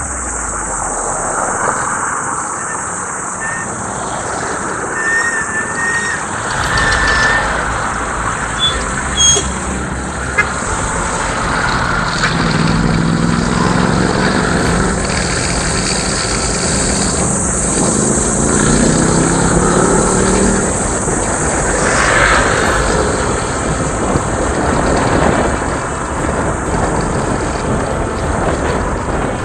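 Motorcycle on the move: steady wind and road rush with the bike's engine running underneath. The engine note climbs as it accelerates through the middle stretch.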